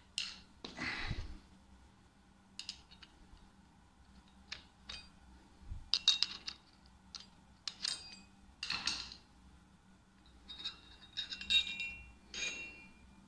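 Light metal-on-metal clinks and scrapes, several with a brief ring, from a tool and a thin steel Belleville washer being handled at a lathe headstock spindle. The clinks come in small clusters, the busiest near the end.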